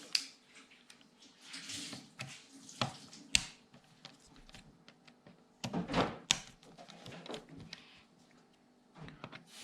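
Scattered clicks and light knocks of small hand tools and parts being handled on an RC car chassis while screws are being undone, with a sharp click about three and a half seconds in and a cluster of knocks around six seconds.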